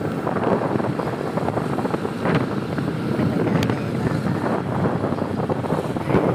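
Wind buffeting the microphone of a moving open vehicle, over a steady rush of engine and road noise.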